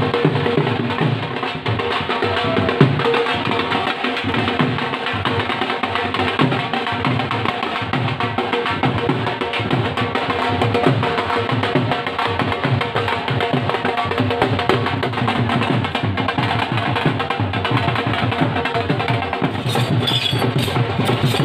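Rhythmic drumming with clacking percussion, a busy steady beat.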